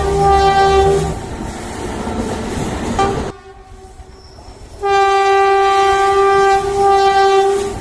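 Train horn sounding over a running train: one blast cuts off about a second in, leaving the train's rumble, then a second long blast starts about five seconds in, breaks briefly and stops just before the end.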